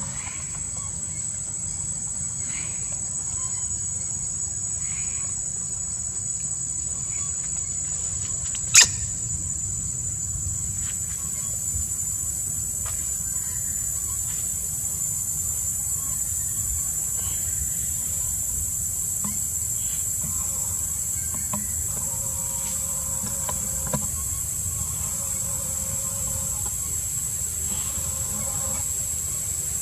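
Insects calling in one steady, high-pitched drone over a low rumble, with a single sharp click about nine seconds in.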